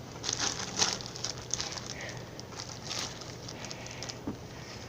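Slime being squished and stretched by hand, making irregular small clicks and crackling pops.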